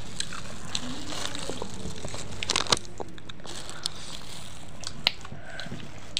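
Thin plastic bag and a foil snack packet crinkling and rustling as fingers pick pickle out of the bag, with scattered sharp crackles, a cluster of them about two and a half seconds in.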